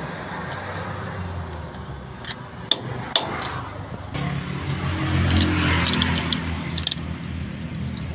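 Light metal clicks and scrapes of a screwdriver tip working at the lock ring on the sun-gear shaft of a dump truck's planetary hub. From about four seconds in, a steady low engine-like hum runs underneath, with more clicks over it.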